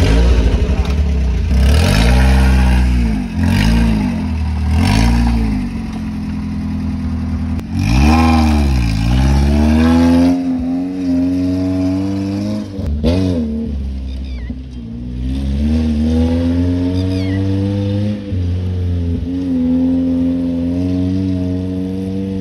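Engine of a red off-road 4x4 revving in several quick blips, then pulling away and accelerating, its pitch climbing and dropping back twice at gear changes.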